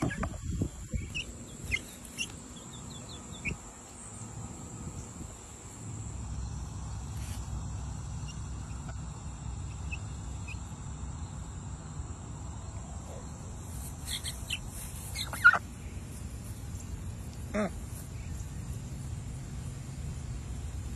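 Farmyard poultry calling, with scattered short high chirps.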